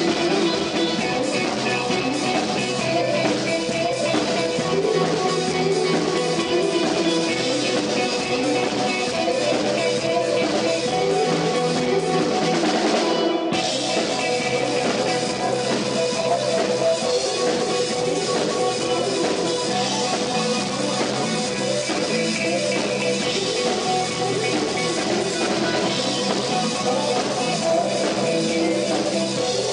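A rock band playing live, instrumental with no singing: electric guitar and bass over a steadily played drum kit, with a short dip in the high end about halfway through.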